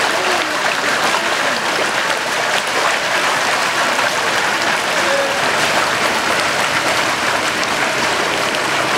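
Floodwater gushing up through a street manhole, a steady rushing splash.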